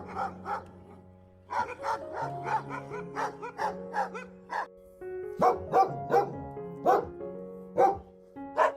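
An animal giving a quick run of short, sharp calls, about three a second, over background music; the calls pause about a second in and again about five seconds in, and the later ones are louder.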